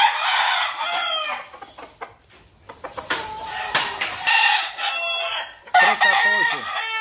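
Gamecock roosters crowing: a loud crow right at the start, another about three seconds in and another near the end, with clucking between.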